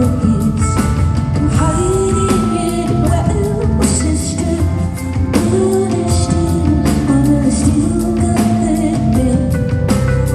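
Live concert music recorded from the audience: a woman singing over a band, with a steady beat throughout.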